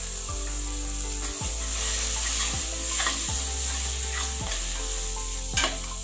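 Onion and spice masala sizzling in oil in an aluminium pressure cooker while a steel spoon stirs it, with a sharp scrape of the spoon against the pan about five and a half seconds in.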